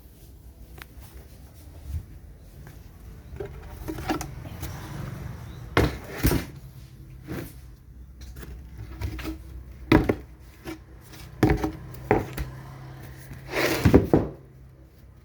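Wooden boards being handled: scattered knocks and scrapes of wood on wood, the loudest about six, ten and fourteen seconds in.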